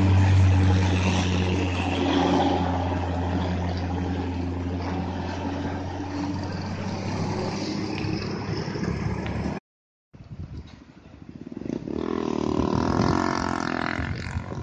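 Diesel engine of a loaded Hino truck running with a steady low hum as it passes, slowly fading as it moves off. After a brief break about two-thirds in, the diesel engine of an old Mitsubishi Fuso truck revs up with rising pitch as it climbs round the bend.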